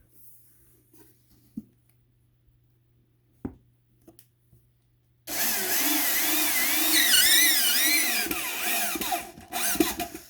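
Power drill driving screws into a wooden beehive box: a few faint clicks, then about five seconds in the drill runs for about four seconds, its whine rising and falling as the load changes. It stops briefly, then runs again in a short burst near the end.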